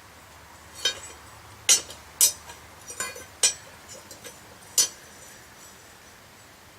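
Six irregularly spaced sharp metal clinks from a pair of forged steel blacksmith tongs being worked on.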